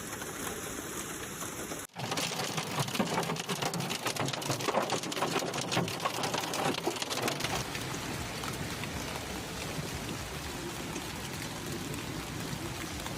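A hailstorm with rain pelting hard surfaces: a dense, rapid clatter of many small impacts over a steady hiss. There is a brief dropout about two seconds in, and the clatter is heaviest for the next few seconds, then eases to a steadier downpour hiss.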